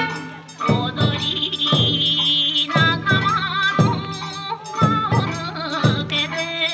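Bon odori folk music: a wavering vocal line over drum beats that fall about once a second.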